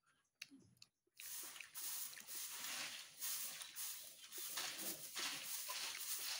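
Chewing close to the microphone, soft and uneven, after about a second of near silence at the start.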